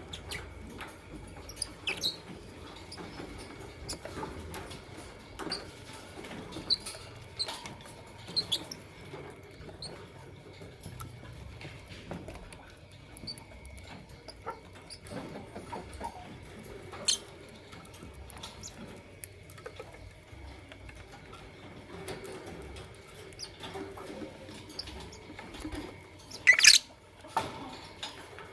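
Lovebirds giving short, shrill squeaky chirps now and then, mixed with light clicking and pattering; one loud shrill call comes near the end.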